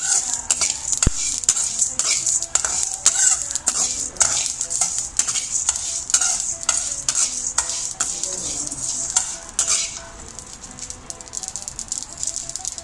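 A metal spoon scrapes and clinks against a hammered metal kadai as a pan of whole spices is stirred while dry-roasting. The seeds (coriander, mustard, cumin, fenugreek, with dry red chillies) rattle and hiss in the pan. The stirring grows softer about ten seconds in.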